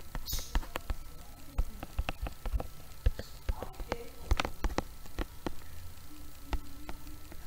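Stylus tapping and clicking on a tablet screen during handwriting, as sharp, irregular clicks a few times a second.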